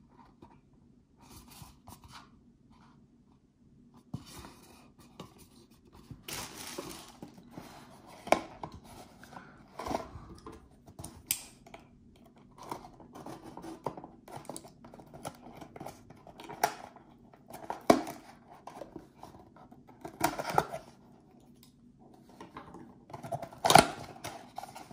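Retail packaging being opened by hand: irregular rustling, scraping and tearing with sharp clicks and snaps, quiet at first and busier from about six seconds in, with the loudest snap near the end.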